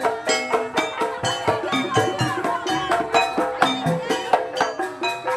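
Live jaranan ensemble music: struck gongs and metallophones ringing over drums in a fast, even beat.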